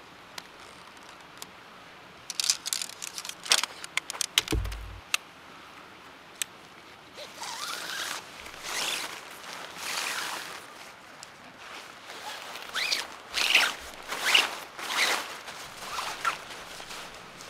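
Hilleberg Rogen tent poles clicking as the shock-corded sections snap together, with a dull knock among the clicks. From the middle on, a pole is pushed through the tent's fabric sleeve in a run of swishing, rustling strokes.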